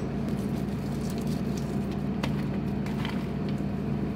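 Steady low kitchen background hum with a few faint scattered ticks and crackles.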